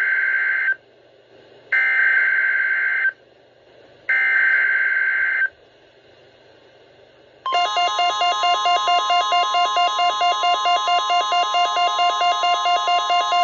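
Emergency Alert System SAME header: three bursts of shrill, buzzing digital data tones, about a second apart. About seven and a half seconds in, the alert's attention tone starts: a steady high tone with a lower tone pulsing about four times a second, continuing to the end.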